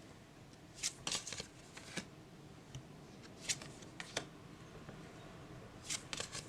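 Tarot cards being handled: scattered light card clicks and slaps, a cluster about a second in, single ones a little later, and a few more near the end.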